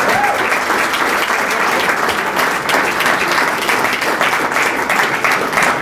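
Audience in a room applauding, a steady dense clapping.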